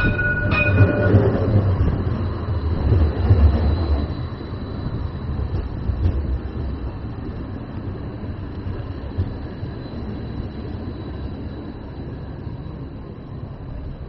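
Edinburgh tram (CAF Urbos 3 light rail vehicle) passing close by at low speed. Its low rumble is loudest for the first few seconds and then fades to a quieter steady noise as it moves away, with a brief high tone about half a second in.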